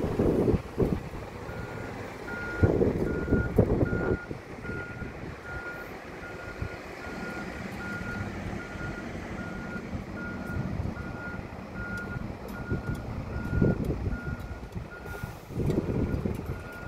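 A bus's reversing alarm beeping, a single high tone repeating about one and a half times a second, over the engine running. Loud gusts of wind buffet the microphone near the start and again near the end.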